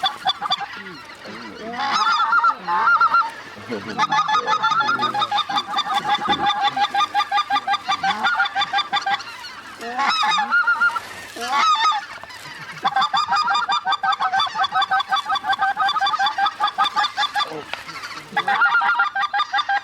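Geese honking: fast, continuous runs of overlapping calls in two long stretches, with a few separate rising and falling calls between them.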